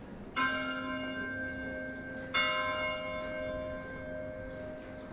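Church tower clock bell striking the hour twice, about two seconds apart, each stroke ringing on. Two strokes mark two o'clock.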